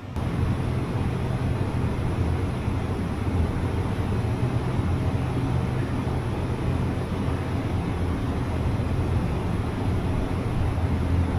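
Steady low rumbling noise that starts and stops abruptly, with no change in level.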